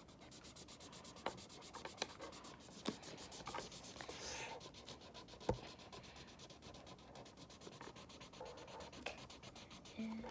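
Marker being scribbled over paper while colouring in: a faint rubbing, with a few light ticks and taps scattered through it.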